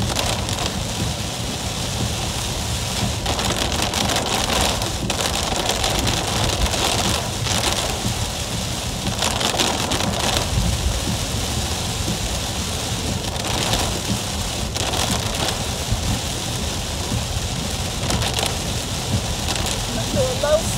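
Heavy rain falling on a car's roof and windshield, heard from inside the moving car, swelling louder every few seconds over a steady low road rumble.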